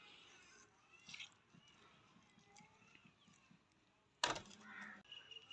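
Faint, soft cuts of a kitchen knife scoring raw chicken pieces, with a sudden louder noise just over four seconds in. Crickets start chirping steadily near the end.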